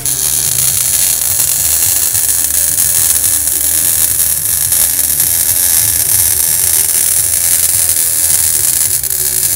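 Wire-feed welding arc laying a bead on steel: a loud, steady hiss that holds the same level throughout.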